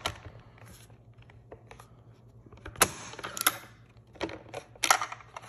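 Tikka T3X bolt-action rifle's bolt being worked by hand: sharp metallic clicks and short scrapes as the bolt handle is lifted and the bolt moved. The bolt is stiff on a factory 22-250 round, which the owner puts down to a headspace problem.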